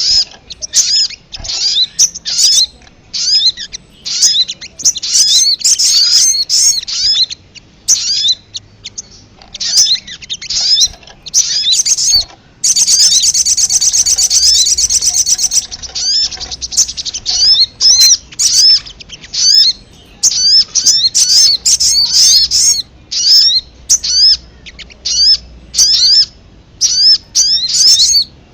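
Calls of the sogok ontong (little spiderhunter), a lure recording: rapid runs of short, high, chipping notes that each hook upward, in bursts with brief gaps. Twice, a little under halfway and again at the end, they run together into a dense, continuous chatter.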